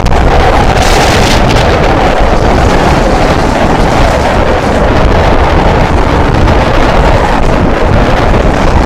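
Train running at speed: a steady loud rumble and rush of air, with wind buffeting the microphone at the window. A brief brighter hiss about a second in.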